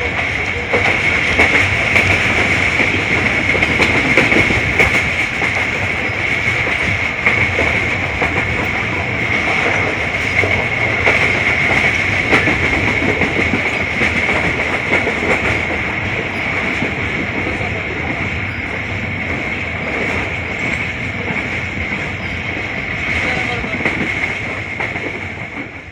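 Passenger train coaches running at speed, heard from an open coach window: a steady rush and rumble of wheels on rails, with scattered clicks of rail joints and a steady high-pitched tone throughout. The sound fades out at the very end.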